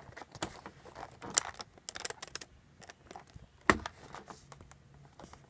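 A hand handling a cardboard retail box: scattered light taps and rustles, with one sharper click a little under four seconds in.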